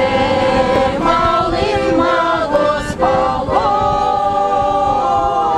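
Cossack choir singing a song together in chorus, several voices holding long notes and moving between them.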